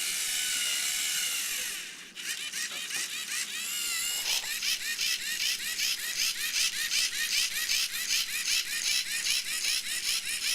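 Small robot's electric drive motors whirring as it drives off, first as a steady whir, then with a fast even ticking pulse, about five a second, and a wavering whine.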